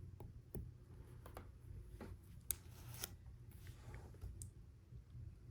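Faint, scattered clicks and light rattles of plastic Lego Technic pieces being handled and fitted together, a piece being pushed through a part.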